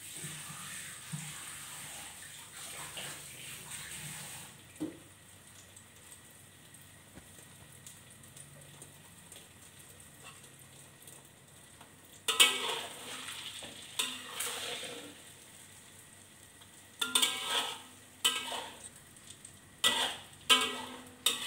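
Egg omelette frying in oil in a wok, a steady sizzle that dies down after about four seconds. From about twelve seconds in, a metal spatula scrapes against the wok in short, sharp strokes, about seven of them.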